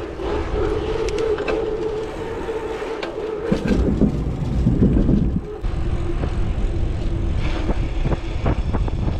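Mountain bike riding noise heard from the handlebars: tyres rolling on pavement with a steady hum, wind on the microphone and small rattles. About three and a half seconds in, a louder rumble lasting about two seconds as the wheels cross a wooden plank footbridge.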